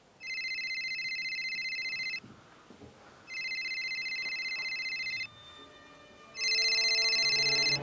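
Telephone ringing with a warbling electronic ring: three rings of about two seconds each, the third louder and stopping as the call is answered.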